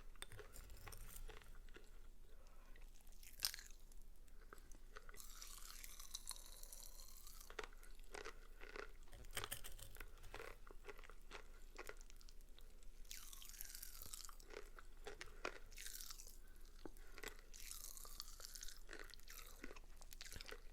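Pop Rocks candy popping and crackling in a mouth close to the microphone, with chewing and crunching: many small sharp pops throughout and several stretches of dense, hissing crackle, the loudest single pop about three and a half seconds in.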